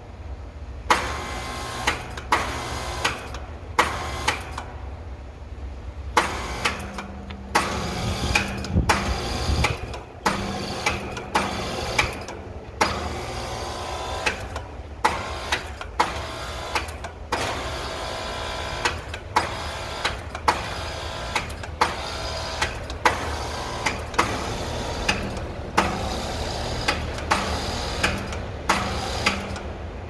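Carrier A/C condenser unit humming while it makes loud, sharp clicks at irregular spacing, about one or two a second, as its fan struggles to start and keep spinning. The owner puts this down to a failing run/start capacitor or a failing condenser fan motor.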